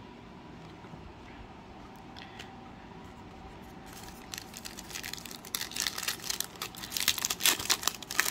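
Foil wrapper of a Donruss Optic football card pack crinkling and being torn open: a dense crackle that starts about halfway through and grows louder toward the end.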